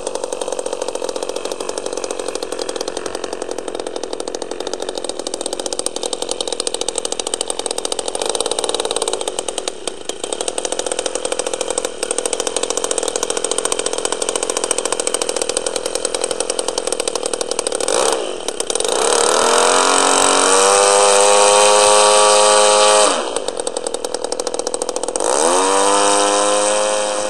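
Engine of an RC Staggerwing model biplane running at idle on the ground, then about 18 seconds in revved up, its pitch rising and held at high speed for about five seconds before dropping back. It revs up again briefly near the end: a ground run-up before a test flight.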